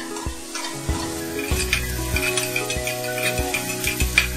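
Sliced carrot, onion and garlic sizzling in hot oil in a pan while being stir-fried, with a metal slotted spoon scraping and tapping against the pan in irregular strokes.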